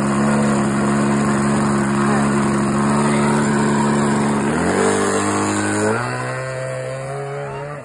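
Small two-stroke nitro glow engine, an OS .55 with a 12 x 5 prop in a Sig Four Star 60 model plane, running on the ground. Its pitch holds steady, drops suddenly about four and a half seconds in, and near the end creeps slowly upward as it gets quieter.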